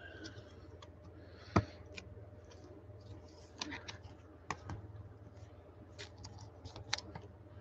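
Scattered light clicks and taps of trading cards and rigid plastic top loaders being handled on a table, with one sharper click about a second and a half in.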